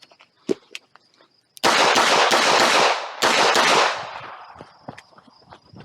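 Handgun fired in rapid strings of shots that run together with echo, starting about a second and a half in. There is a brief pause near the middle, and a few scattered, fainter shots follow.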